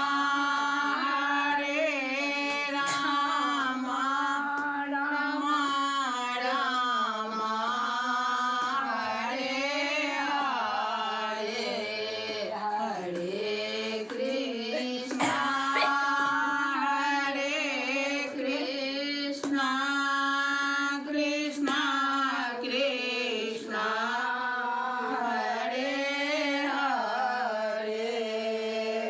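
A woman singing a devotional song in a continuous melodic line, her pitch sliding and ornamented from note to note.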